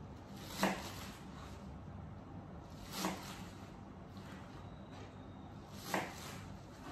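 Garlic chives being handled at a kitchen counter: three short rustling swishes about three seconds apart, as bunches of stems are picked up, sorted and set down.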